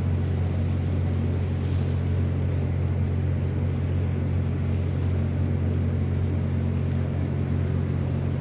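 Steady low hum of a DP offshore vessel's diesel machinery running, heard on its open deck, with an even hiss over it that does not change.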